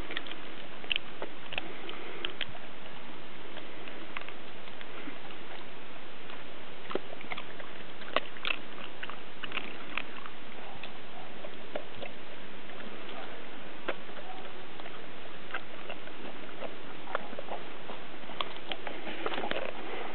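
A springer spaniel and a sprocker spaniel eating raw food: irregular chewing and small clicks scattered over a steady background hiss.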